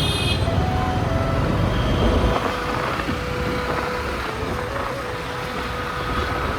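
Road traffic heard from a moving motorcycle: rumble of wind on the microphone and the noise of engines around it. The low rumble drops off about two seconds in.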